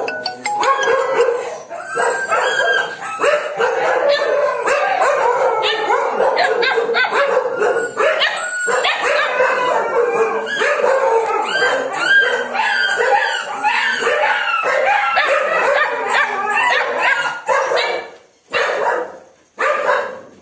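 Many kennelled dogs barking at once in a loud, dense, overlapping chorus. Near the end it thins out to a couple of short separate bursts.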